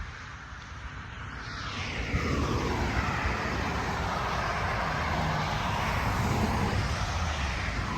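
A car driving past on the road: tyre and engine noise swelling from about two seconds in and holding.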